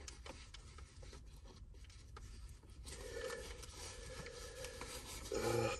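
Faint rubbing and small clicks of a handgun being handled in the hands. A brief, louder hum sounds near the end.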